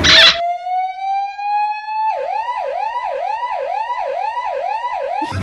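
Siren: after a brief loud burst, a tone rises slowly for about two seconds, then switches to a fast yelp of about three up-and-down sweeps a second, ending abruptly.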